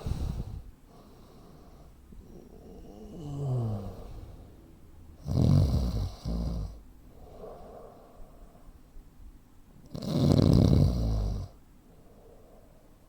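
A man snoring heavily in his sleep, with breathing typical of sleep apnea. There are loud snores about five seconds in (a shorter one just after) and again about ten seconds in, a softer snore that falls in pitch about three seconds in, and soft breaths between them.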